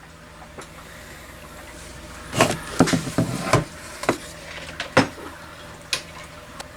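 A handful of short clicks and knocks, about seven in the space of four seconds, from objects being handled, over a faint steady electrical hum.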